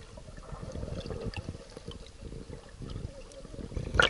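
Muffled, low underwater gurgling and sloshing of water picked up by a submerged camera, with a sharp splash near the end.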